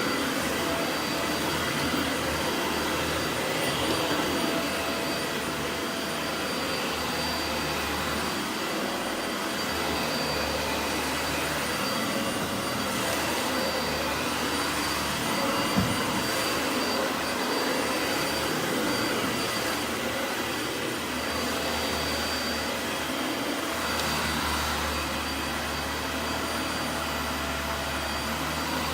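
Dyson Light Ball Animal upright vacuum cleaner running steadily on its middle setting, its brush bar working a carpet, the suction whine rising and falling slightly as it is pushed back and forth. One short knock about halfway through.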